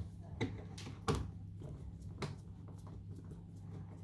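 Phillips screwdriver undoing a screw in the door handle of a 1972 Mercedes W114's door: a few light clicks and taps, the loudest about a second in, over a low steady hum.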